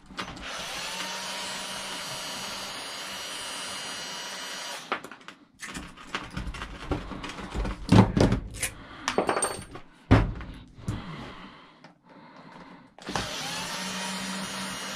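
Maktec cordless drill running steadily, its pitch rising as it spins up, for about five seconds with its bit on the end of an electric motor's housing. Then comes a stretch of knocks and clatter as the motor and drill are handled, and near the end the drill spins up and runs again.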